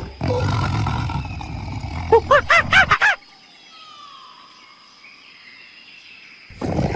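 A rapid run of short, yelping animal calls, about seven a second, over rough rumbling noise, then a quiet stretch with faint bird whistles. The yelping calls start again near the end.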